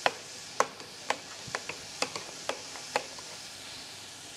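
Potato masher knocking against a stainless-steel pot while boiled potatoes are mashed into purée: a string of sharp, irregular clicks, about three a second, that stop about three seconds in. A steady hiss of food sizzling on the stove runs underneath.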